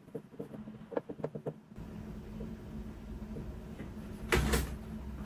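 Light ticks and taps of a thin wire coil being handled, then a hot-air gun switched on, its fan starting a steady low hum about two seconds in, with a brief louder rush of air near the end.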